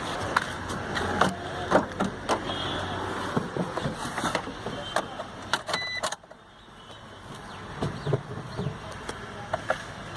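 Scattered clicks and knocks of handling around a car being readied to start, over a steady background hum. About six seconds in a short beep sounds and the background noise cuts off sharply, and the clicks carry on more quietly.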